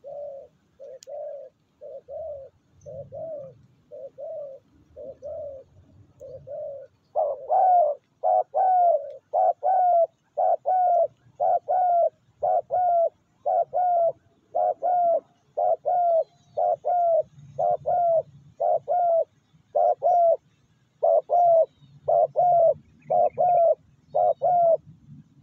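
Spotted dove calling: a steady run of short coos, a little more than one a second. They are fainter for about the first seven seconds, then louder and fuller until near the end.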